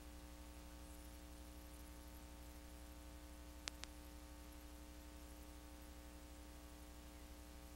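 Near silence: a steady low electrical hum with faint hiss, broken by two quick clicks in a row a little before the middle.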